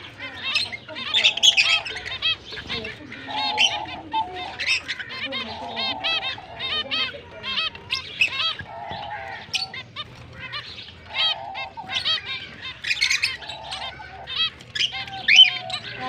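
Zebra finches calling over one another: a busy run of short, nasal, beeping notes, with longer, lower calls coming every couple of seconds.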